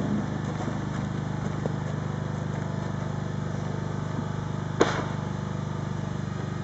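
An engine running steadily at a constant speed, with one sharp knock about five seconds in.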